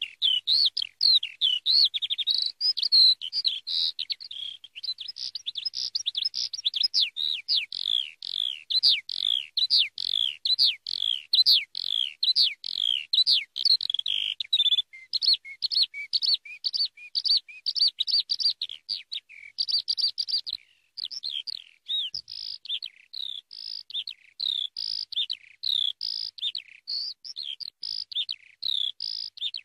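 Eurasian skylark singing: a long, unbroken stream of rapid high chirps, warbles and trills, with a brief pause about two-thirds of the way in.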